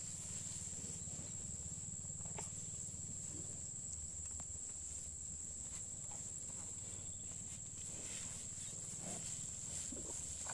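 Steady high-pitched drone of an insect chorus over a low rumble, with a few faint short knocks and rustles scattered through.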